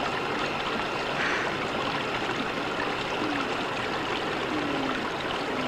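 Jacuzzi whirlpool water churning steadily.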